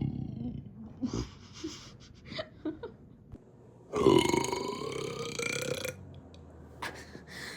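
A person burping: one long, loud burp about four seconds in, lasting over a second, its pitch dipping and then rising, after a few faint clicks and small mouth noises.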